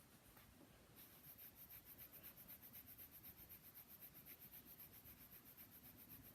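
Faint, rapid back-and-forth rubbing of a make-up brush being wiped clean on a cloth, about seven strokes a second, starting about a second in.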